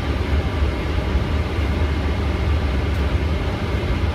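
Steady cabin rumble of a Boeing 777 taxiing in at idle power, heaviest in the low end and unchanging, with a faint steady whine on top.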